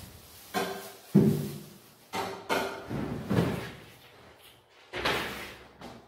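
Refrigerator being rummaged through: a series of about seven knocks and thuds from its drawers and door, the loudest about a second in, with the door shut by the end.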